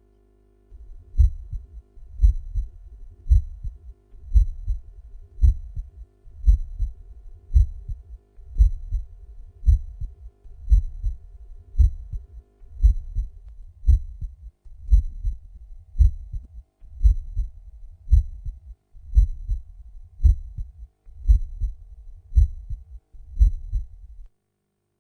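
Human heart sounds, a steady lub-dub beating about once a second, each beat a low double thud. It starts about a second in and stops shortly before the end.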